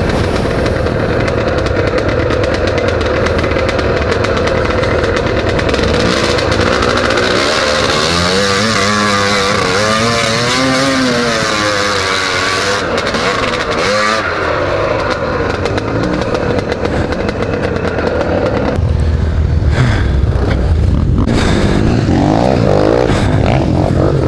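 Off-road motorcycle engine running, heard from the rider's own helmet camera, revving up and down repeatedly as the bike is ridden through a shallow ford with water splashing off the front wheel. Near the end the engine sound turns lower and heavier.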